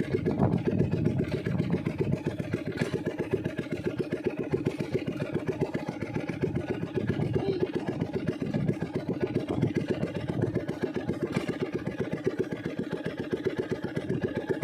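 Small boat's engine running steadily at low trolling speed, with a rapid, even chugging pulse.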